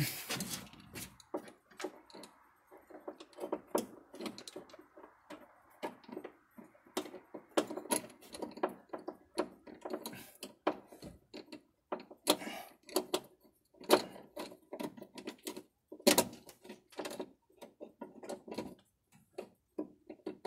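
Irregular clicks, clinks and knocks of small metal car parts and tools being handled and fitted, with a soft rustle during the first few seconds.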